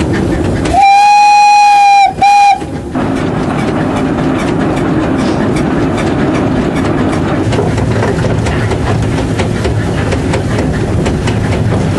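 Narrow-gauge Henschel steam locomotive's whistle blown: one blast of just over a second and a short second blast right after it. Then the train runs on with a steady rumble and the clatter of wheels on the rails.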